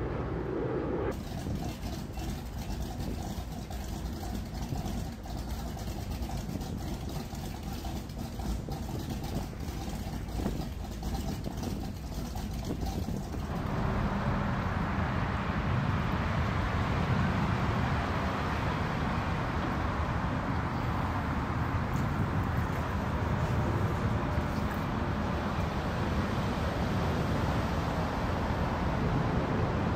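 Motorboat engines running. About 13 seconds in, the sound turns louder and fuller.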